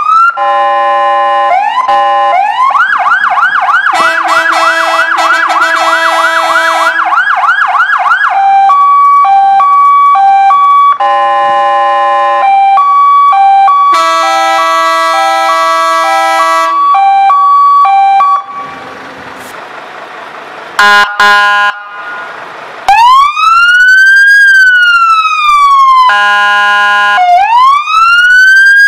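Fire engine electronic sirens switched through their tone patterns: a fast yelp of quick rising sweeps, then a high-low two-tone alternation. About two-thirds in there is a quieter stretch of hiss broken by short tone blasts, and after it a slow wail that rises and falls, repeating about every three seconds.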